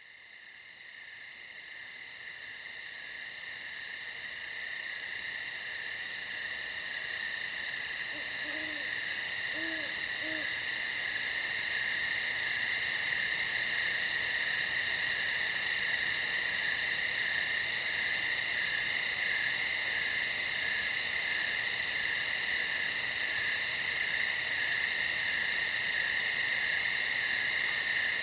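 Nighttime insect chorus, a steady high trilling that fades in over the first dozen seconds. About nine seconds in, an owl gives three soft low hoots.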